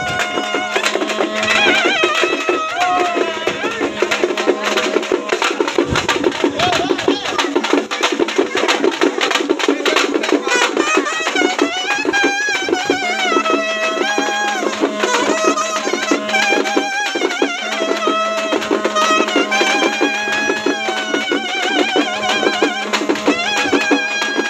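Traditional folk procession music: a loud wind instrument plays a wavering, ornamented melody over fast, continuous drumming, with a steady low drone tone under much of it.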